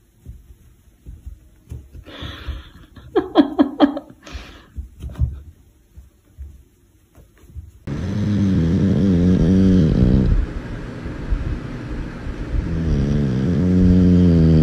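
A sleeping dog snoring loudly. There are two long, drawn-out snores with a low, wavering tone, the first about eight seconds in and the second near the end, after a few faint short sounds earlier on.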